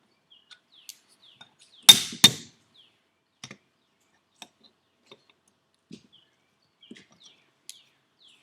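Small metal clicks and taps from fitting a C-clip retaining ring into a turbocharger's compressor housing with pliers, with two sharp, loud clicks close together about two seconds in.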